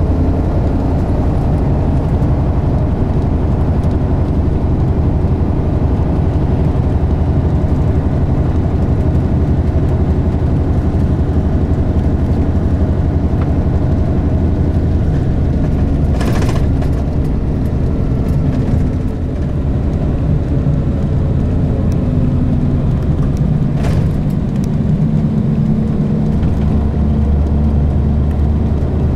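Bus engine running steadily, heard from inside the passenger cabin, with a low drone whose note shifts and grows louder near the end. Two short clicks come through, around the middle and later on.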